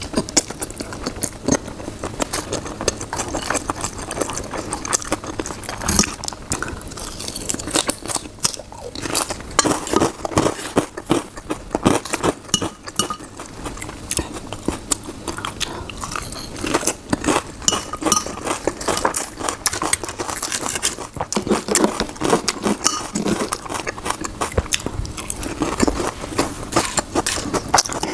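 Close-miked chewing and mouth sounds of a person eating, with many quick irregular clicks and smacks.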